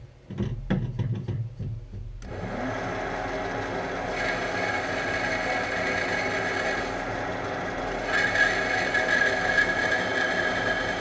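A few knocks and clicks of hands working the metal lathe's controls, then about two seconds in the lathe starts and runs steadily, its motor and gears giving several fixed whines. A higher band grows stronger about four and again about eight seconds in while the carriage moves under power feed at 0.06 mm per turn.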